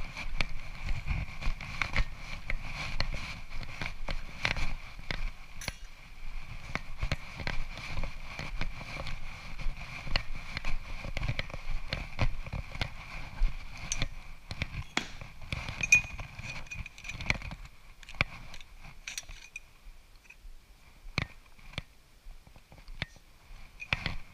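Footsteps and the clatter of hand tools and metal stock being picked up and handled: irregular clicks and knocks, with low thuds over the first two-thirds, over a steady faint high whine that fades about two-thirds of the way through. The last several seconds are quieter, with scattered clicks.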